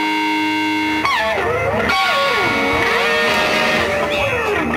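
Background music on electric guitar: a held note, then notes that slide up and down in pitch.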